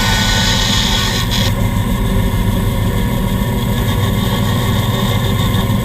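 Band saw and dust collector running steadily, with the blade cutting through wood until about one and a half seconds in; after that only the machines' steady hum remains.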